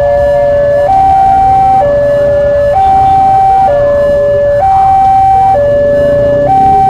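Level-crossing electronic warning alarm sounding a steady two-tone signal, a lower and a higher tone alternating about once a second, with the barrier down to warn of an approaching train.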